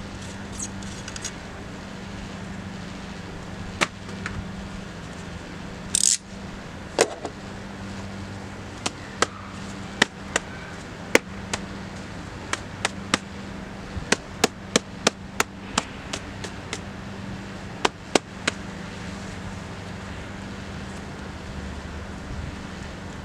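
Hand work on a car's engine air filter housing: a string of sharp plastic clicks and knocks at irregular intervals, thickest in the middle, with a brief rustling scrape early on, over a steady low hum.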